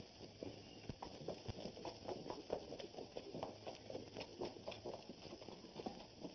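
Horses' hooves clip-clopping on a street: a quick, irregular run of many hoof strikes, as of several horses walking and trotting together.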